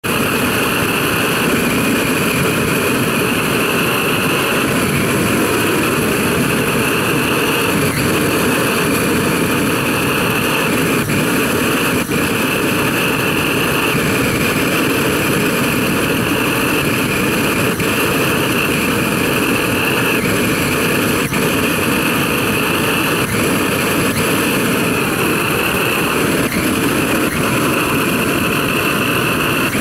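Petrol blow torch burning with a steady, loud rushing hiss from its burner.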